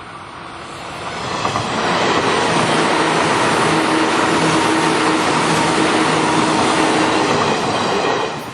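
An electric commuter train passes close by, rising about a second in, staying loud for about six seconds, and dropping off near the end. A few steady tones run through the rushing noise.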